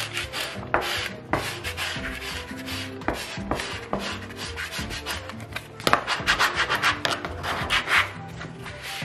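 A plastic squeegee is rubbed in repeated strokes over self-adhesive d-c-fix vinyl film on a worktop, smoothing the film down and pressing out small bubbles. The strokes come faster from about six seconds in. Background music plays underneath.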